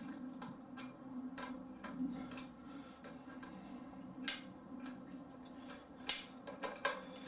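Scattered light metallic clicks and clinks of hand tools and small parts being handled on a motorcycle's front brake lever assembly, with a few sharper clicks near the end.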